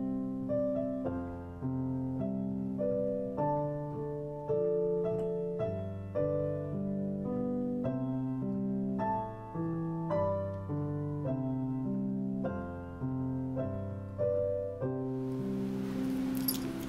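Solo piano music: a slow melody over held bass notes. Near the end a hiss and a few sharp clicks come in under the music.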